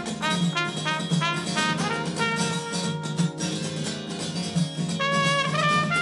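Cornet playing a melody over a band accompaniment with a steady low pulse. It plays a quick run of short notes, then longer held notes, and the last held note bends slightly upward near the end.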